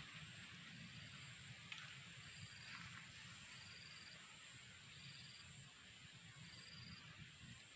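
Faint outdoor ambience of insects: a steady high-pitched buzz with a short chirping trill repeating about once a second, over a low rumble and a single small click about two seconds in.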